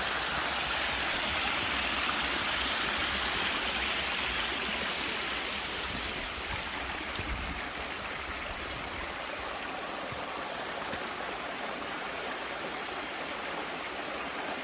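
Rushing water of a stream: a steady, even hiss that eases a little after about six seconds.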